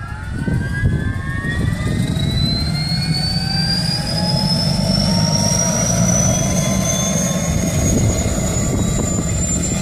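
Helicopter engine spooling up during start-up: a whine that rises steadily in pitch throughout, over a low rotor rumble that swells within the first second and then holds.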